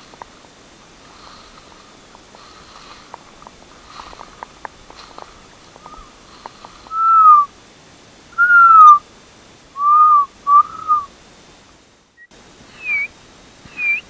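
A person whistling short signal calls through the lips: four loud, arched whistles, each rising slightly and then falling, in the second half. After a brief break, two shorter, higher-pitched whistles come near the end.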